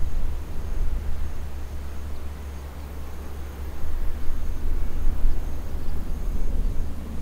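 Distant jet rumble of a four-engined Boeing 747-400 flying away, mixed with gusty wind buffeting the microphone; the noise eases briefly in the middle and swells again about four seconds in.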